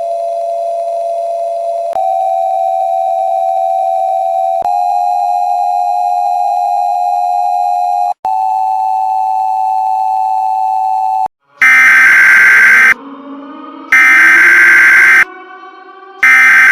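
A steady electronic drone tone with overtones, stepping up in pitch a few times, cuts off about eleven seconds in. Then loud digital EAS SAME header data bursts start, one roughly every two and a half seconds, warbling high squawks with two full bursts and the start of a third. Between them a faint tone slowly rises in pitch.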